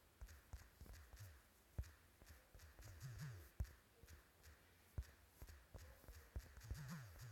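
Faint scattered clicks and taps over a low rumble, like handling or tapping noise close to the microphone.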